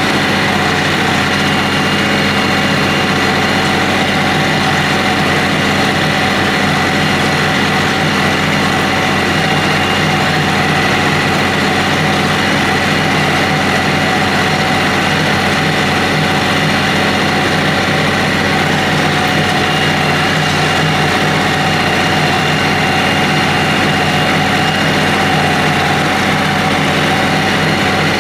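Kioti CK3510 compact tractor's diesel engine running at a steady, even speed while the tractor is driven slowly and steered.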